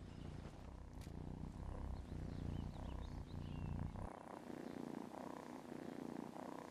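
Cat purring, a low, pulsing rumble that is stronger for about the first four seconds and then softer.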